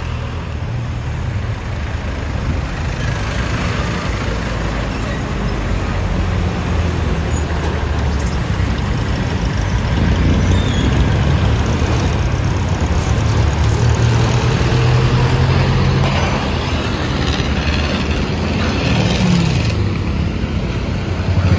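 Street traffic: engines of passing cars, trucks and buses running as a continuous low rumble. It grows louder from about halfway through.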